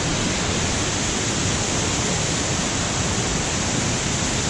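Cummins Falls waterfall: a steady, even rush of falling water.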